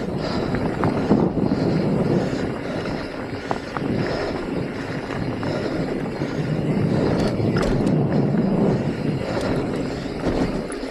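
Mountain bike riding fast down a rocky dirt trail: knobby tyres rolling over dirt and rock in a steady rush of noise, with a few sharp clicks and knocks from the bike over rough ground.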